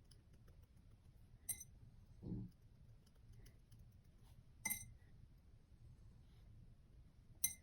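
Three light clinks, a few seconds apart, of a paintbrush tapped against a glass water jar, with a short, soft, low sound about two seconds in.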